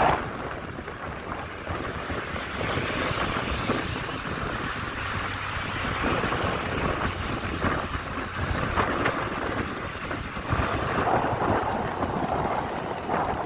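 Strong wind buffeting the microphone during an e-bike ride: a steady low rumble with a rushing hiss over it, and no clear tones.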